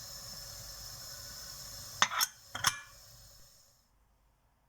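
Steady steam hiss from a pressure cooker on the stove, with two sharp clinks about two seconds in; the hiss then dies away to near silence.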